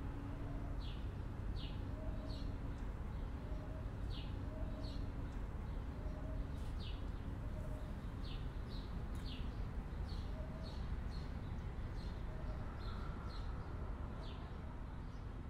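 Outdoor ambience of small birds chirping, short sharp calls repeating every half second to a second, with a few faint lower notes, over a steady low hum and rumble.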